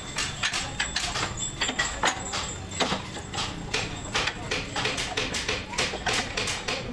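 Wooden boards and offcuts knocking and clattering against each other and the bench as they are handled: a quick, irregular run of sharp knocks, several a second.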